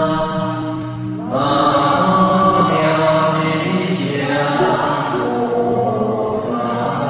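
Buddhist chanting invoking Manjushri Bodhisattva, voices sustaining long held notes, with a new phrase starting just over a second in.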